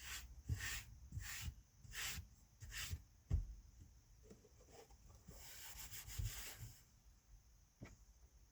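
A series of soft rubbing strokes, about five in a row less than a second apart, with a light knock among them, then one longer rustle about five seconds in.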